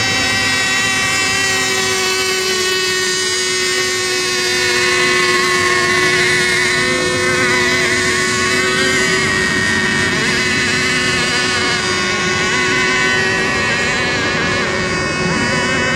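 Several radio-controlled racing boat engines running at speed: a loud, continuous high whine made of overlapping pitches that waver as the boats change speed.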